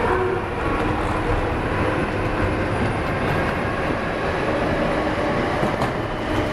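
Steady rumbling hum of an underground railway station, with an escalator running.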